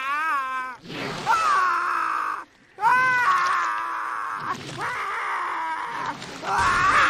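High-pitched cartoon voices making wordless caveman vocal sounds: several long, wavering calls with short breaks between them.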